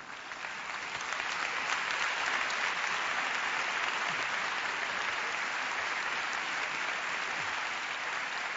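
Audience applauding, the clapping building up over about the first second and then holding steady.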